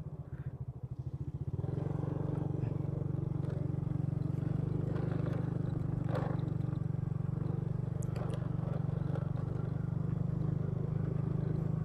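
Motorcycle engine running steadily while riding, low and pulsing at first, then picking up about a second and a half in. A few brief knocks and rattles come from the bike along the way.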